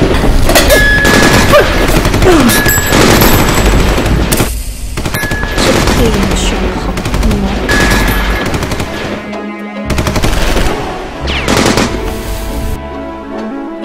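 Sustained bursts of machine-gun fire, dense and crackling, with a few falling whines and short breaks, over action music.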